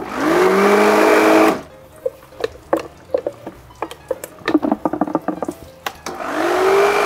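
Commercial blender run in two short pulses of about a second and a half each: the motor whine rises as it spins up through thick basil pesto, then cuts off. Light clicks and knocks come between the pulses. The brief pulses only stir the grated Parmigiano into the sauce rather than blending it fully.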